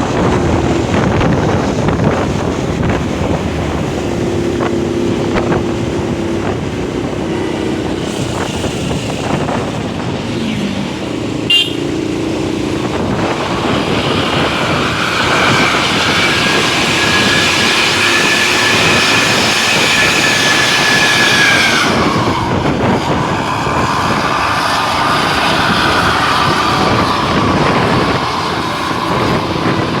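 Road and traffic noise from moving vehicles, with a tour bus's multi-tone basuri telolet air horn sounding a long two-note chord, held for about eight seconds from just before halfway, then sliding down to a lower note that sustains for several seconds more.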